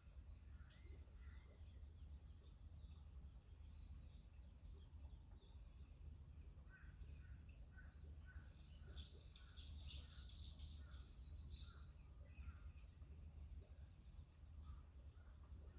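Faint birdsong: scattered high chirps, with a quick flurry of high notes about two-thirds of the way through and a run of evenly repeated lower call notes, over a steady low rumble.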